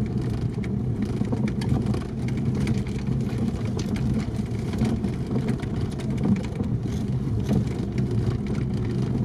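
ZAZ-968M Zaporozhets' air-cooled V4 engine running steadily under load, heard from inside the cabin while driving slowly over a rough snowy forest track, with scattered short knocks and rattles from the car.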